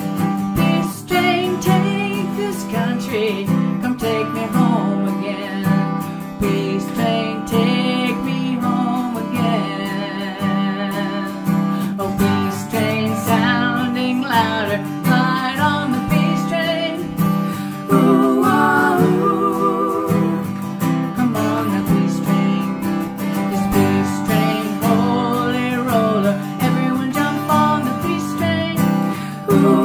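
Acoustic guitar strummed steadily while women's voices sing together.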